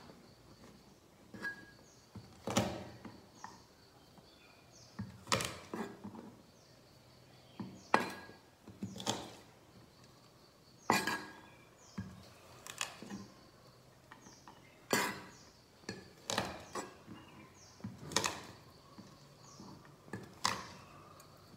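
Broad kitchen knife knocking on a thick wooden chopping block: single sharp strikes every two seconds or so, with lighter taps between.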